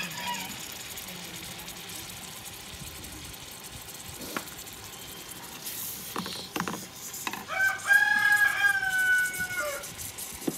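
A rooster crows once, a long call of about two seconds with a held, slightly falling final note, starting about three-quarters of the way in. A few faint knocks come before it.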